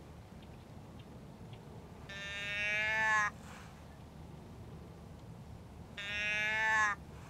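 Two identical drawn-out bleats from a deer bleat call, each about a second long, rising slightly in pitch and cutting off sharply, blown a few seconds apart to draw in a whitetail buck.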